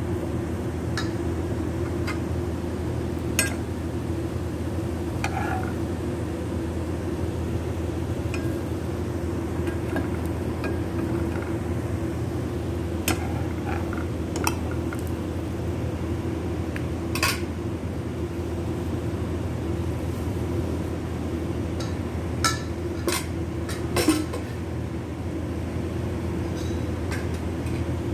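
A spatula knocks and scrapes against a nonstick frying pan a handful of times while a pancake is lifted out, over a steady low hum.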